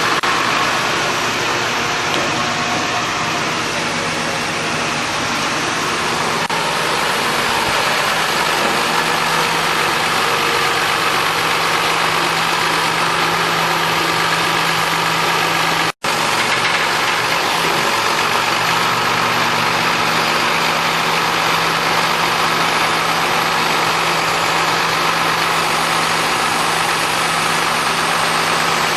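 A motor vehicle engine idling steadily, with a low even hum. The sound cuts out for an instant about halfway through.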